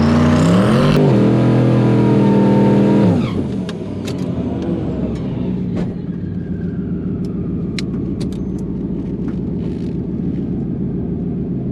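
A drag car's engine revving hard for about three seconds, its pitch climbing, then dropping away sharply to a lower, steadier running sound with a few light clicks.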